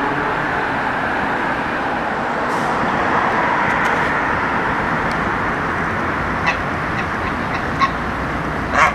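Steady hum of city road traffic, with a few short, sharp sounds near the end, the last the loudest.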